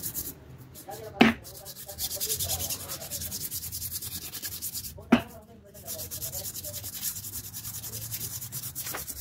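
Sandpaper rubbed quickly back and forth around an electric motor's rotor shaft at the bearing seat, cleaning the shaft before new bearings are fitted: a run of fast, even rasping strokes. Two sharp knocks, about a second in and about five seconds in.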